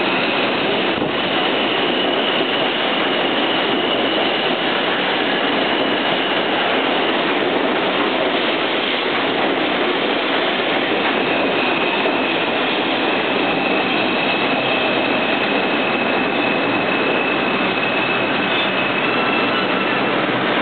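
R142 subway train running into a station alongside the platform, a steady loud rush of wheels on rail as it slows, with a thin high squeal on and off over it.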